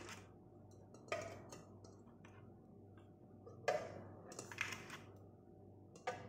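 Raw eggs being set down one at a time in a stainless steel pot: light knocks of eggshell on metal, about four of them, the loudest a little past the middle.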